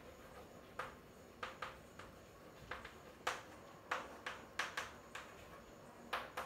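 Chalk on a chalkboard as words are written: an irregular run of short, sharp taps and scratches, about a dozen strokes.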